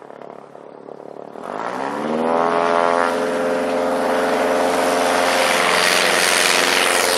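Zenith STOL CH 750 Super Duty light aircraft's engine and propeller, faint at first, then rising in pitch and loudness from about a second and a half in as it rolls along the runway toward the listener. It settles into a loud, steady drone.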